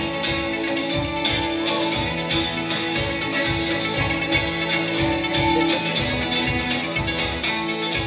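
Live folk-fusion band music led by a strummed bulbul tarang (Indian keyed zither), its bright plucked-string notes over a hand drum keeping a steady beat of about two strokes a second.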